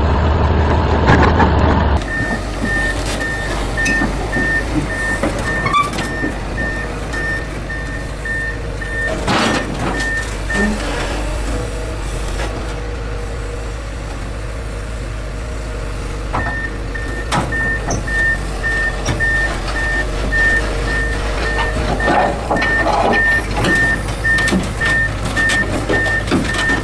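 Komatsu PC200LC excavator's diesel engine running as it tracks up onto a lowboy trailer, with a warning alarm beeping at an even pace, about two beeps a second. The alarm stops for several seconds midway and then resumes, and there are scattered clanks from the tracks and steel.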